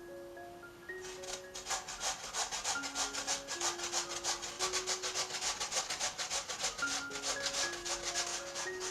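Rhythmic rasping strokes, about three or four a second, starting about a second in, typical of a raw potato being grated on a metal grater. A light mallet-percussion melody plays underneath.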